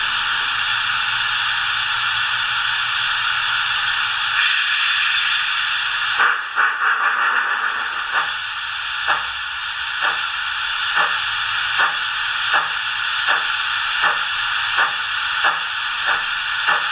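Steam-locomotive sound from a LokSound DCC decoder played through the small speaker of a Hornby OO-gauge Duchess model: a steady hiss of steam. About six seconds in, the exhaust chuffs start, slow at first and gradually quickening as the engine gets under way.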